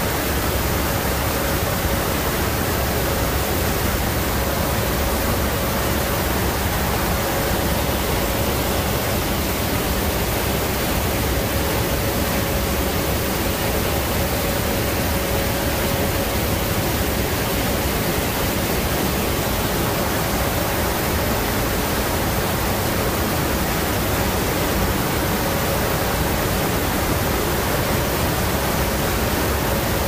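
Steady rush of wind and aircraft engine noise in the cabin of a transport aircraft in flight, its paratroop door open, with a faint steady hum.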